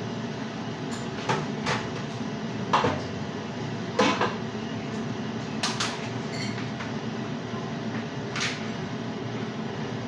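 Kitchen clatter: about eight sharp knocks and clicks at uneven intervals, some in quick pairs, over a steady hiss.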